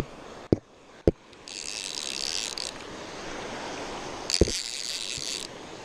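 Baitcasting fishing reel buzzing in two bursts of about a second each as a hooked fish is fought, with a few sharp knocks from hands on the reel and camera. Surf washes steadily underneath.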